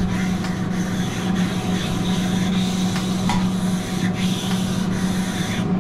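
Grill brick scrubbed back and forth across a hot steel flat-top griddle wet with lemon juice, a continuous rough rubbing and scraping. A steady low hum runs underneath.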